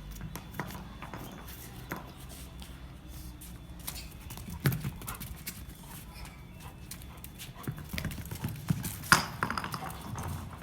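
Labrador's paws and claws clicking and tapping on a hard floor as it moves about during a game of fetch. A louder knock comes about halfway through, and the loudest one near the end.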